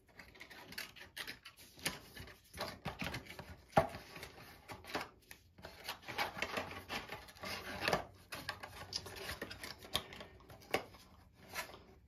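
Packaging and paper instructions being handled: irregular rustles, scrapes and light clicks.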